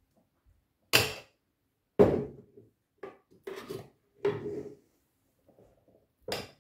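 A spoon knocking and scraping against a blender jar and a bowl as hummus is scooped out, a string of separate clinks and scrapes about one a second, the loudest about two seconds in.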